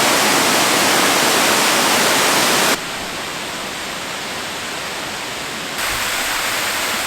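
Steady rushing noise spread across all pitches. It drops abruptly about three seconds in and comes back up somewhat near six seconds.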